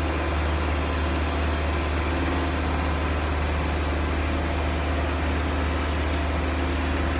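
Kobelco SK135SR excavator's diesel engine running steadily with a low, even drone.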